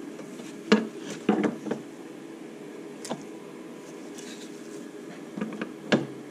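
Sharp metal clinks and knocks as the Suzuki SV650's steel gearbox shafts and gears are handled and seated into the aluminium crankcase half, the loudest under a second in and near the end, over a steady low hum.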